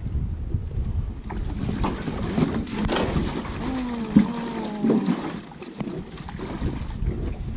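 Wind buffeting the microphone over moving river water around a drift boat, with a few light knocks and a short wavering tone about four seconds in.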